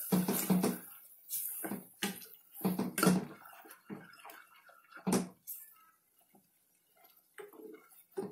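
Plastic spatula stirring and scraping a thick spiced onion-coconut paste frying in a stainless steel pressure cooker: irregular wet scrapes and slaps, with a lull about six seconds in. The paste is being stirred until the oil separates.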